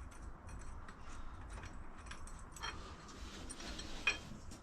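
Light metallic clicks and clinks of hand tools and fixings as a part is taken off during an engine fit, with one sharper click about four seconds in.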